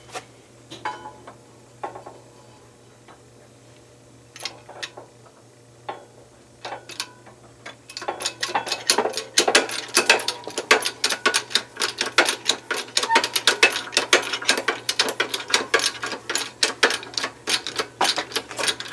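Homemade hydraulic shop press being worked to bend a red-hot steel strap into a U-shaped clevis in a jig. A few scattered clicks and knocks come first, then from about eight seconds in a fast, uneven run of metallic clicking and clanking from the press's pump mechanism.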